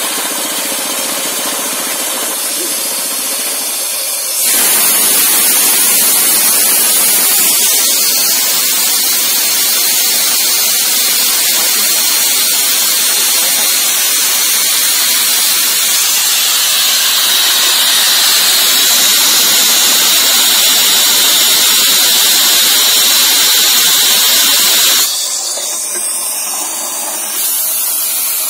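MK5 rock drill running on compressed air: a loud, even hiss of air comes on suddenly about four seconds in and cuts off near the end, leaving a quieter noise.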